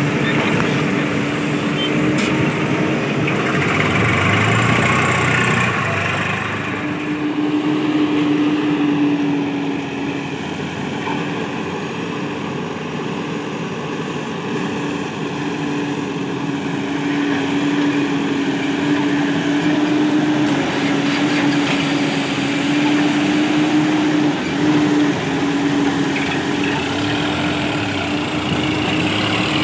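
Diesel engines of a backhoe loader and tractor running steadily at work, a constant drone with a held hum throughout, louder for a couple of seconds about four seconds in.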